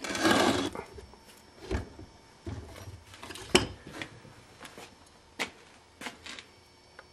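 Cast-iron governor housing of a 1949 John Deere BW being flipped over and handled by hand: a brief scraping rush at the start, then a handful of separate knocks and clunks, the loudest about three and a half seconds in.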